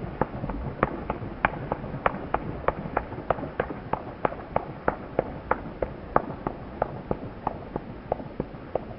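A large waterbird pattering and splashing across the lake surface on a take-off run, its wings and feet slapping the water in an even rhythm of about three slaps a second.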